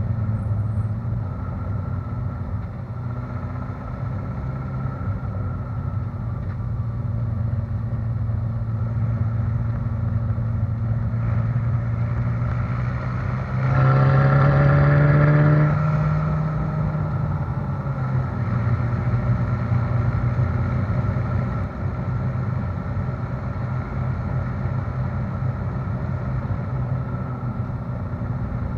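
Ferrari California's V8 exhaust at a steady low-rev cruise, over road rumble from a rough surface. About halfway through, a brief push on the throttle makes it louder and rises a little in pitch for a couple of seconds, then it settles back to cruising.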